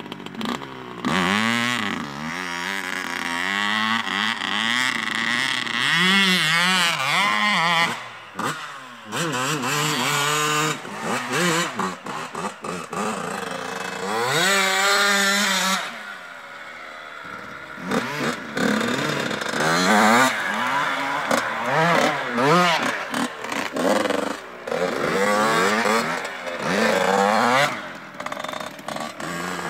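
Two-stroke 85cc motocross bikes being ridden hard. The engine note repeatedly climbs as the throttle opens and drops back at each shift or throttle-off, with a quieter stretch a little past halfway.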